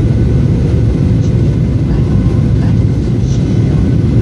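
Jet airliner cabin noise on final approach: a loud, steady low rumble of the engines and rushing air, heard from inside the cabin.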